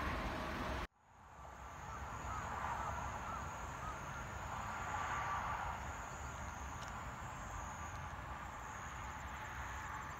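Outdoor riverside ambience: insects droning steadily at a high pitch, with faint bird chirps over a low rumble. It starts after a short drop-out about a second in, where a road-traffic rumble cuts off.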